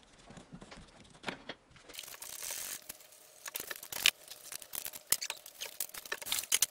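Hand tools being handled: rustling, then a quick run of sharp metal clicks and clinks, the loudest about four seconds in.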